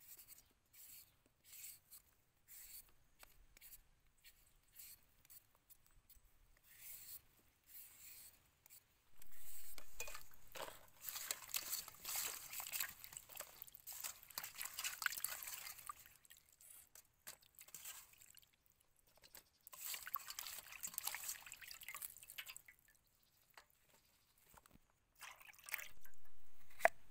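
Short scraping strokes of a hand peeler on winter melon skin, then hands washing vegetables in a metal basin of water: bouts of splashing and dripping, the loudest about a third of the way in, with a sharp knock near the end.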